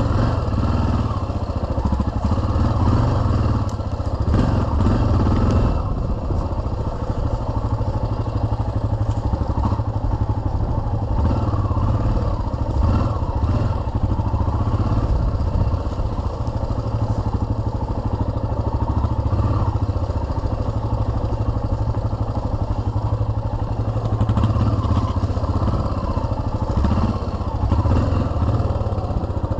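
Yamaha XT 600's single-cylinder four-stroke engine running continuously as the motorcycle is ridden along a rough dirt trail, its pitch wavering with the throttle.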